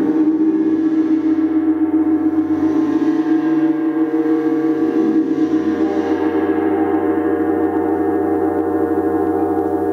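A large planetary gong tuned to Jupiter ringing steadily with many overtones. Its upper overtones swell up twice in the first six seconds, then the whole sound slowly dies down.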